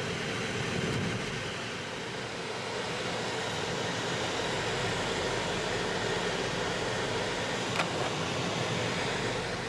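Steady road and engine noise of a car driving, heard from inside the cabin, with one faint tick near the end.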